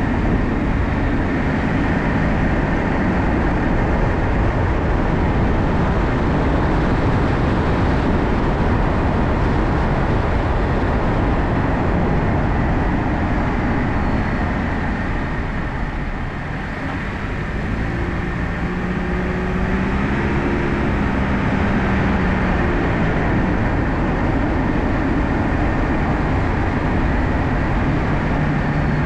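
Car driving: steady road and tyre noise with engine hum. The noise eases briefly about sixteen seconds in as the car slows at a stop sign, then an engine note comes through as it pulls away.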